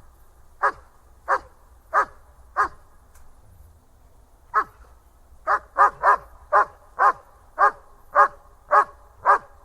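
German Shepherd barking over and over: four evenly spaced barks, a pause of about two seconds, then a faster run of about two barks a second.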